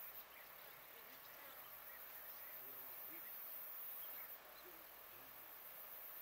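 Faint outdoor summer ambience: a steady high-pitched insect hiss that dips briefly every few seconds, with scattered faint bird chirps.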